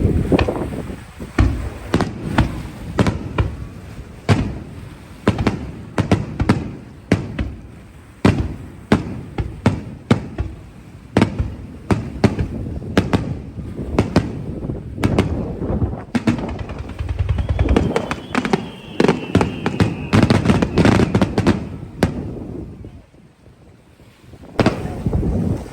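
Aerial fireworks shells bursting in rapid, irregular succession, sharp bangs with rumbling echoes. The bangs stop for about two seconds near the end, then resume.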